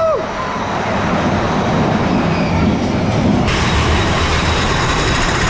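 Big Thunder Mountain Railroad mine-train roller coaster running along its track: a steady, loud rumble of wheels on rail mixed with rushing air. The sound grows brighter about three and a half seconds in as the train picks up.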